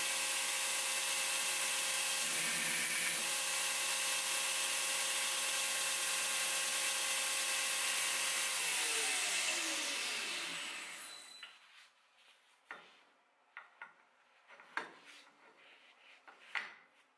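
Belt grinder running, with a 1045 steel hammer head held against the belt. About halfway through, the motor is switched off and the belt winds down, its hum falling in pitch over a couple of seconds. Then come several light metal knocks as the hammer head is handled on the grinder's steel work rest.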